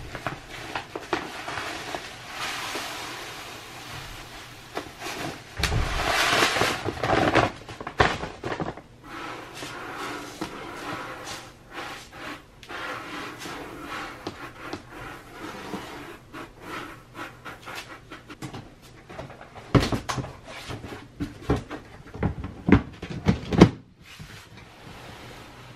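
Crystal cat litter poured from a plastic bag into a plastic litter box, a steady rushing sound that is loudest about six to eight seconds in. The crystals are then spread by hand with light rustling and clicking, and near the end the plastic hood is set back on the box with several sharp plastic knocks.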